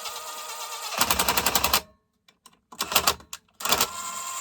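Small power tool driving a bolt on a chainsaw: the motor whines, then rapid hammering about a second in, short bursts after that, and the motor runs again near the end.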